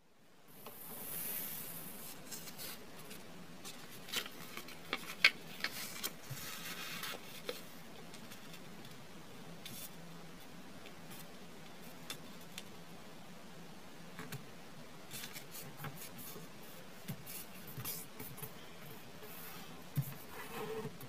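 Square origami paper being folded and pressed into creases by hand on a wooden desk: scattered crinkles, rustles and small taps over a steady hiss, with the sharpest crackle about five seconds in.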